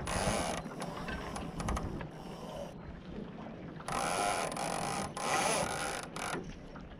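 Mainsheet line running through a Barton ratchet block on a Laser dinghy, the ratchet's pawl clicking in a fast buzz. It comes in bursts: one at the start and two more about four and five seconds in.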